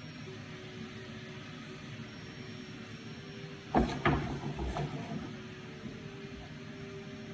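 A sharp knock a little before the middle, followed by about a second of lighter knocks and rattling, over a steady background hum.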